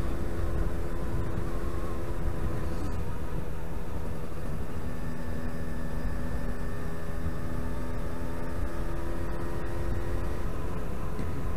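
Yamaha RD125LC YPVS single-cylinder two-stroke engine running while the bike is ridden, over a heavy low rumble of wind and road noise. Its note holds steady, then changes pitch about three seconds in and again near the end.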